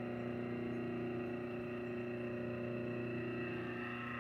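Electric motor of a Delta DP-220 drill press running on its own with the drive belt off: a steady hum with a whine above it.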